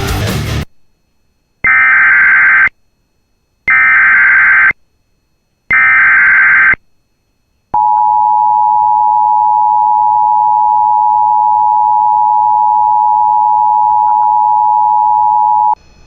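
Emergency Alert System SAME header: three one-second bursts of warbling digital data tones, a second apart. They are followed by the two-tone EAS attention signal, held steady for about eight seconds before it cuts off. This sequence marks the start of a new warning broadcast. A brief burst of noise comes at the very start.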